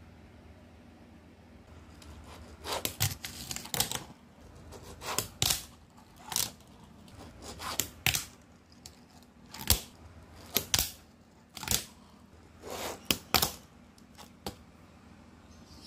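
Fingerboard ridden across a manny pad: a string of sharp clacks as the board pops and lands on the pad, mixed with short scrapes of the wheels and trucks rolling and sliding on its surface. The clacks start a few seconds in and stop shortly before the end.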